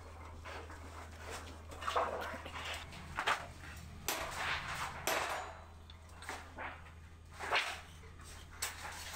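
Hand hammer striking sheet metal on an anvil plate, a handful of irregular sharp knocks with a steady low hum underneath.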